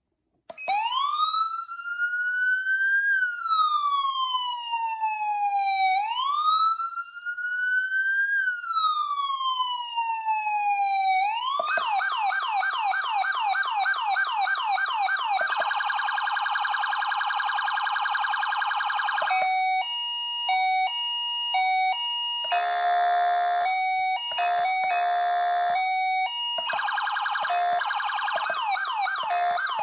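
Federal Signal SmartSiren Platinum SSP3000B electronic siren cycling through its tones. It starts about half a second in with a slow wail, rising and falling twice. Around eleven seconds in it switches to a fast yelp, then to a rapid priority warble, then to a two-tone hi-lo. For the rest it runs its 'everything' mode, switching between these patterns.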